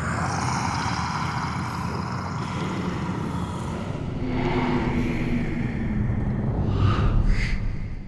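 Spooky soundtrack of a projected Halloween hologram animation of grinning monster faces: a low rumble with creature growls and whooshes. It is loudest near the end, then fades away as the faces vanish.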